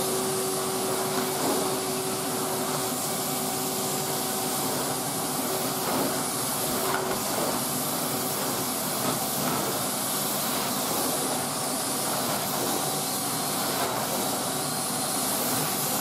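Numatic Henry HVR200A cylinder vacuum cleaner running on its 1200-watt high-power setting, its floor tool drawn over carpet: a steady rushing hiss of suction with a faint humming tone that fades about seven seconds in.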